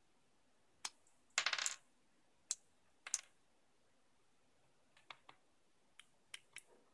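Small hard objects being handled while unboxing: a scatter of sharp clicks and taps, with a short rattling clatter about one and a half seconds in.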